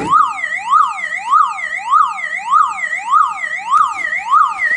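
Opened car alarm siren unit, with its own built-in battery, sounding continuously: a loud electronic wail sweeping up and down a little under twice a second.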